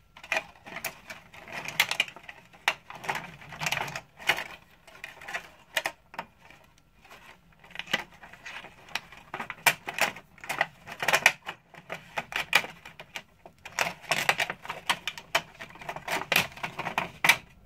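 Irregular clicks, taps and rattles of plastic parts inside a Mira Elite electric shower's casing being handled and snapped back into place.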